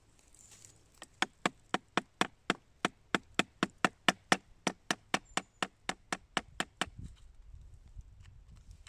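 Hammer striking a wood chisel driven into a dead tree stump: about two dozen sharp, even knocks, about four a second, for some six seconds, then stopping. The wood is being chiselled away so the reishi bracket growing on it comes off whole.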